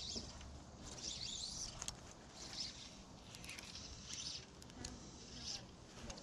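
Birds chirping in short high-pitched phrases about once a second over a steady outdoor background, with a few faint clicks.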